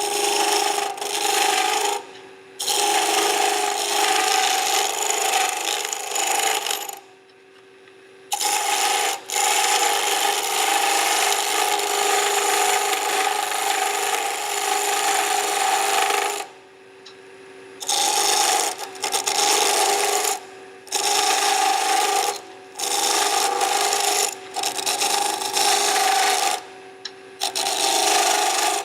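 Turning tool cutting spindle stock spinning on a wood lathe: a steady scraping hiss with a hum in it, taking the wood down to a marked 3/4-inch diameter. The sound breaks off briefly about six times as the tool is lifted from the wood.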